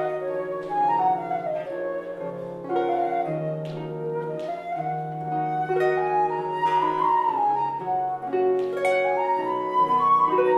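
Baroque chamber ensemble playing an instrumental passage of an anonymous Scottish Jacobite tune: a baroque flute (traverso) carries the melody over plucked Celtic harp and a sustained low bass line.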